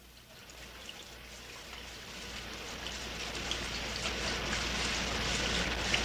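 Rain sound effect fading in at the start of a song: a steady rain hiss with scattered drop ticks that grows louder throughout.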